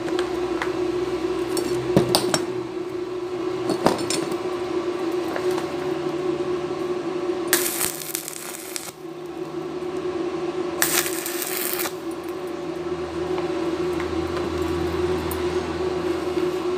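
Stick-welding arc crackling and sizzling as tack welds are laid on thin 1.5 mm square tubing, with two louder spells of crackle around the middle, over a steady hum.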